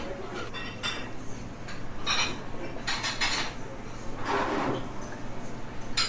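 Cutlery and dishes clinking in a few short, separate clatters, with a sharp clink near the end.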